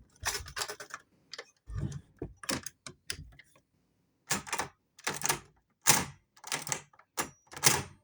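Front door lock and handle being worked over and over: a string of sharp clicks and rattles, coming about every half-second in the second half, with a dull thump about two seconds in. The lock keeps locking itself again.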